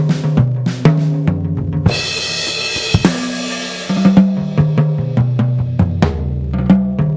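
Sampled Yamaha custom jazz drum kit in its default setting, played from a 2Box electronic drum module: kick, snare and pitched tom hits, with a cymbal crash ringing for about two seconds from about two seconds in.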